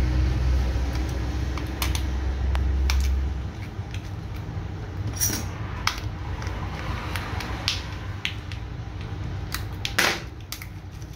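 Plastic wrapping crinkling and clicking in the hands as a coiled USB Type-C data cable is unwrapped, with a louder click about ten seconds in. A steady low hum runs through the first three and a half seconds, then stops.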